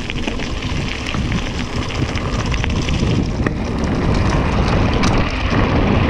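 Mountain bike descending dirt singletrack at speed: wind buffeting the microphone, tyres rolling over the dirt and the bike rattling with many small clicks over bumps, growing louder as the speed builds.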